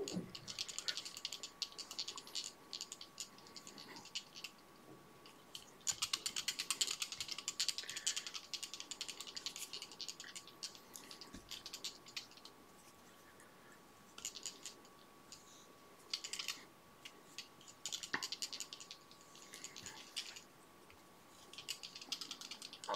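Quiet fly-tying handling sounds: bursts of fast, fine ticking and rustling, a few seconds each with short pauses between, as black silk is wound onto a salmon fly hook held in a vise with gloved fingers. A faint steady high whine sits underneath.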